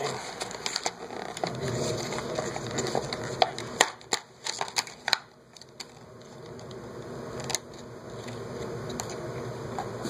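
Stiff retail packaging being pried and torn open by hand: a dense run of sharp clicks and crackles, a short lull about five seconds in, then a softer, steadier rustle.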